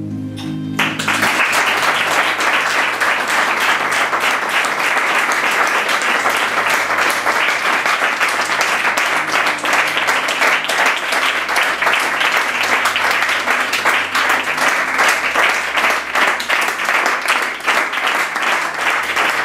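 Audience applauding, breaking out about a second in as the music ends and continuing at a steady level.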